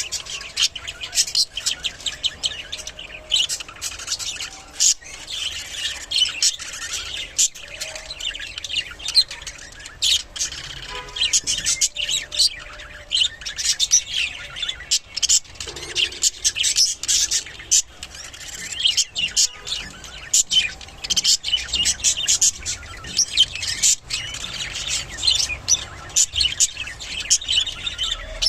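Budgerigars chattering: a continuous stream of fast, high chirps and harsher squawks.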